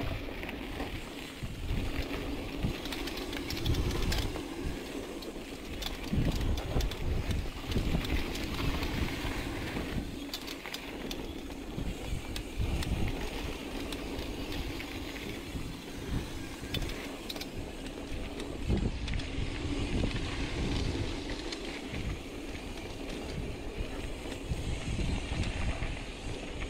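Mountain bike descending a dirt singletrack: wind buffeting the camera microphone in uneven gusts, tyres rolling over the packed dirt, and short knocks and rattles from the bike over bumps.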